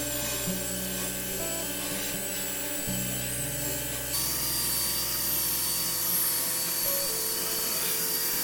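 A wire-brush wheel spun by a drill scrubs across white oak to raise the grain, making a steady, rasping hiss that gets louder about four seconds in. Background music plays over it.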